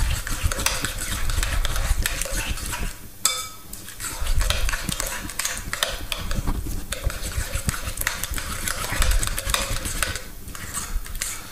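A utensil stirring and scraping a lumpy mixture of feta, goat's cheese and eggs in a mixing bowl, with quick repeated clicks and taps against the bowl. It eases off briefly about three seconds in.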